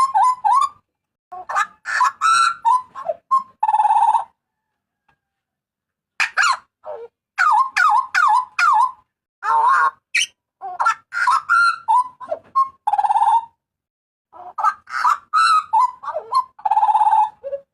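Papuan butcherbird (jagal papua) giving loud calls: bursts of quick notes sliding up and down in pitch, several phrases ending in a harsh buzzy note, with short pauses between phrases.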